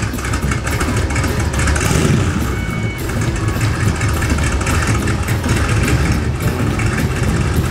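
Contemporary Cobra replica's carbureted V8 engine running at a steady idle, freshly tuned with new MSD ignition, regapped plugs and an adjusted carburettor.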